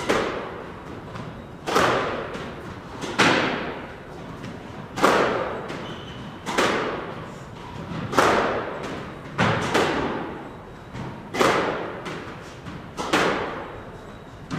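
A squash ball being hit with racquets in a drill: a sharp crack of ball on racquet and wall about every second and a half, about nine in all, each followed by a ringing echo in the court.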